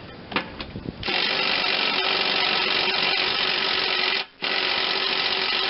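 Power tool running on a seized spindle mounting bolt of a mower deck, in two runs: about three seconds, a short break, then about a second and a half more. The bolt is rusted in; these bolts are snapping off rather than turning out.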